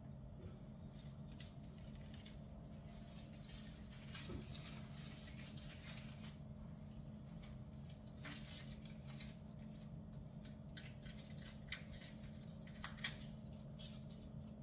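Quiet kitchen sounds of food being prepared: scattered light clicks and rustles over a steady low hum, with one sharper click near the end.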